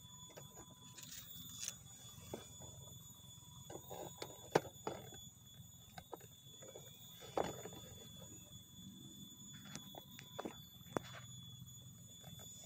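Light scattered crackles and snaps of dry leaf litter and twigs as someone shifts about on the forest floor, over a faint low rumble and a thin steady high-pitched tone; the sharpest snaps come about four and a half and seven and a half seconds in.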